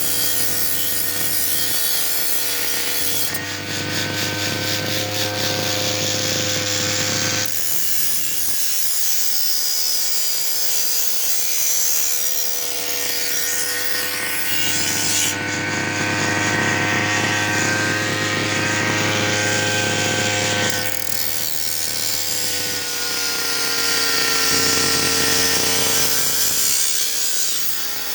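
Brush cutter engine running at high speed while cutting grass and undergrowth, a steady high whine over a hiss. The revs and level dip briefly about three times.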